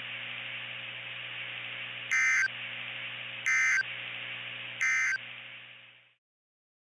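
Three short bursts of EAS digital data tones, about a second apart: the end-of-message signal that closes an alert. They sound over a steady radio hiss with a low hum, which fades out near the end.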